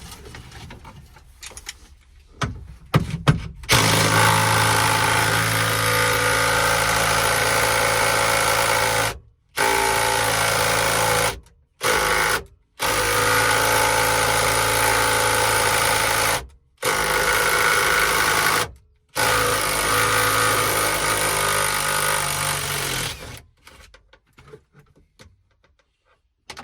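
A handheld power tool running in long stretches at a steady speed, stopping and restarting five times in quick breaks, likely while driving out the trim and seat-belt fasteners.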